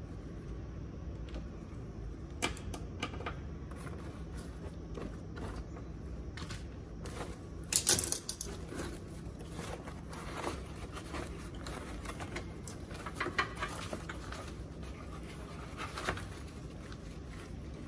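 Hands handling tools, cloth and an aluminium-foil heat shield on an open motorcycle fuel tank: scattered light clicks, taps and rustles, with a short clatter about eight seconds in.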